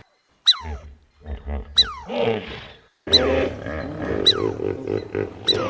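Recorded animal calls, rough and growl-like, cut in with a falling whistle sound effect that repeats about every 1.3 seconds, after a short silence at the start.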